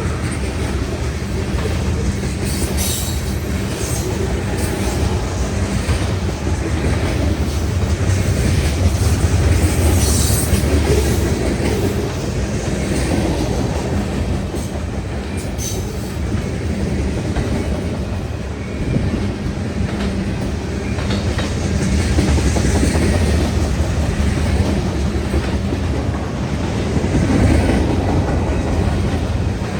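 Freight cars of a long freight train rolling past close by: a steady rumble of wheels on rail with clicking over the rail joints and a few brief high-pitched wheel squeals.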